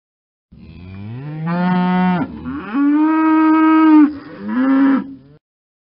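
A cow mooing three times. The first moo rises in pitch, the second is the longest and loudest, and the third is short.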